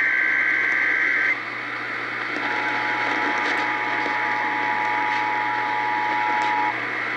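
Emergency Alert System signal received on a radio through steady static hiss. It starts with the end of a SAME header data burst, a harsh warbling screech that stops about a second in. After a short stretch of hiss, the steady two-tone EAS attention signal sounds for about four seconds and cuts off, heralding a severe thunderstorm warning.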